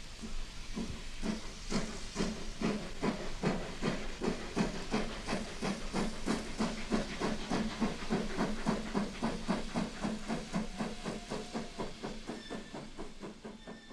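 Steam locomotive chuffing at a steady beat, about three chuffs a second, with a hiss of steam.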